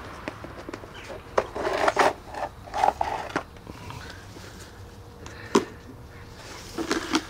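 A plastic food tub's snap-on lid being pried off: several sharp clicks and short scrapes of plastic. A single sharp knock follows a little past halfway.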